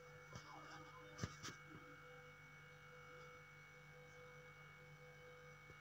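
Near silence: room tone with a faint steady electrical hum and a few faint clicks in the first two seconds.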